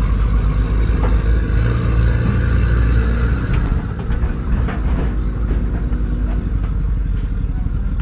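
Sherp amphibious ATV's diesel engine running hard under load as the machine climbs onto a flatbed trailer, with a few short knocks about halfway through. The engine eases off a little in the second half.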